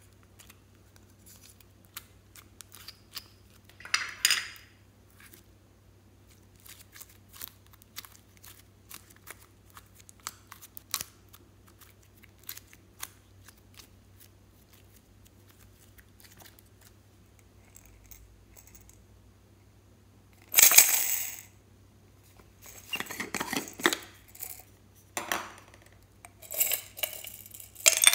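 Hands working glossy slime and plastic pots over a glass tray: scattered small clicks and pops of slime being scooped and stretched, with louder bursts of handling noise, the strongest about two-thirds of the way in and more toward the end.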